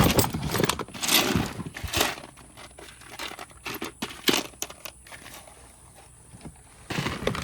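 Rocks clicking and knocking against each other as a box of them is rummaged through, with some rustling. There are separate sharp knocks, the loudest about a second in, at two seconds, a little after four seconds, and again near the end.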